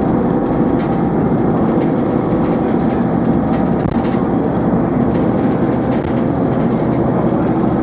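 Metro-Scania single-deck bus's diesel engine running steadily under way, heard from inside the passenger saloon along with the bus's road and body noise.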